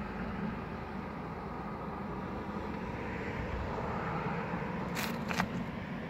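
A steady low rumble of outdoor background noise, with two short sharp crunches close together near the end.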